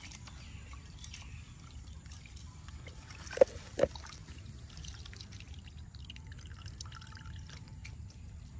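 Two drops of water plinking into water, about half a second apart, over a low steady background noise.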